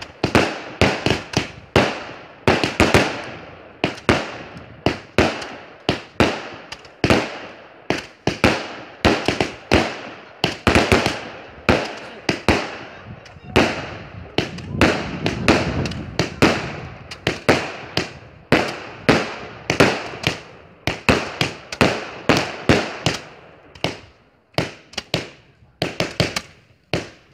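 Multi-shot fireworks cakes firing shot after shot, about two bangs a second, each bang fading quickly, with a short lull near the end.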